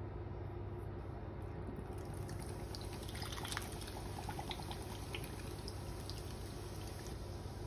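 Beer poured from a can over a pork shoulder in a ceramic baking dish, starting about two seconds in: a splashing pour with crackling fizz, strongest around the middle, over a steady low hum.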